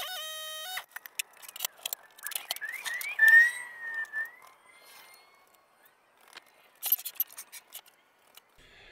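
Background music ending about a second in, followed by scattered clicks and knocks with a few short squeaks.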